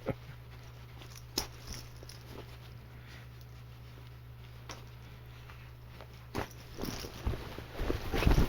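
A steady low hum with two single clicks, then from about six seconds in, irregular rustling and handling of stiff cloth growing louder: a denim vest being handled and pulled on.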